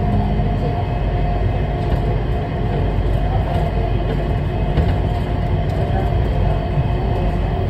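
Changi Airport Skytrain, a rubber-tyred automated people mover, running along its elevated guideway, heard from inside the cabin: a steady low rumble with a constant motor whine.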